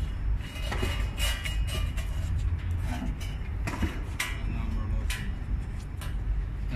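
Hexagonal wire mesh netting machine running with a steady low hum, while the woven wire mesh winding onto its steel roller pipe gives off a handful of sharp metallic clinks and rattles.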